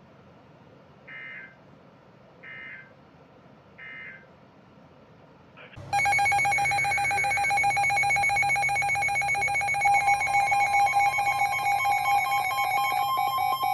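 Emergency Alert System broadcast: three short digital data bursts of the SAME header, then about six seconds in a loud, rapidly pulsing electronic attention tone starts, with a second, higher pitch joining about four seconds later. This announces the warning that follows.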